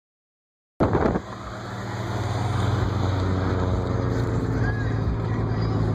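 After a brief silence, a loud knock about a second in, then a car engine and road noise heard from inside a moving car, building slightly over a couple of seconds and then running steadily.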